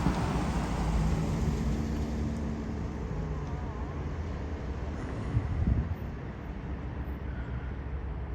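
Car engine and road noise, a steady low rumble, with a brief louder thump about five and a half seconds in.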